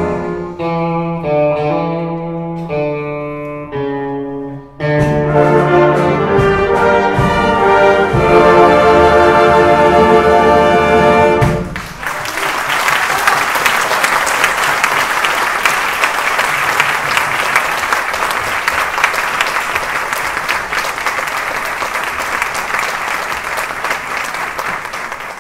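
A concert wind band with saxophones and brass plays its closing phrases, growing louder to a held final chord that cuts off about twelve seconds in. The audience then applauds steadily.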